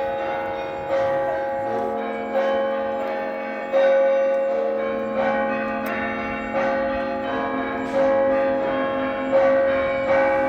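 Russian Orthodox monastery bells rung in a rhythmic peal: a loud strike about every second and a half, with smaller bells chiming between, all ringing on.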